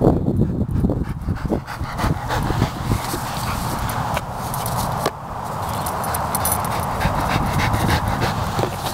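Border collie panting close by, winded from chasing a frisbee, with some low thumps during the first couple of seconds.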